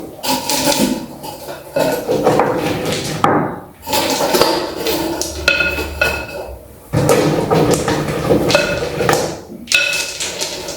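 Stones clattering and clinking against each other as they are set by hand onto a pot, in several handfuls with short pauses between, some knocks ringing briefly.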